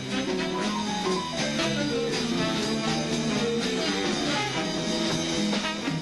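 Live big band playing swing jazz: a moving melody line over the rhythm section's steady beat.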